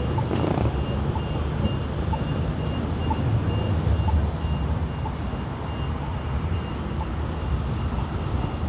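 City street traffic: a steady low rumble of passing cars and vehicles, with a short high electronic beep repeating about twice a second throughout.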